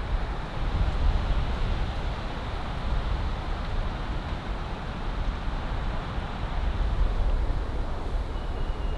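Strong wind buffeting the microphone: a steady rushing noise with a heavy low rumble.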